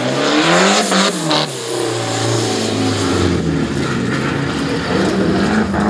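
Rally car engine revving hard as it accelerates out of a slow corner. There are two sharp cracks about a second in, then the engine note climbs steadily as the car pulls away.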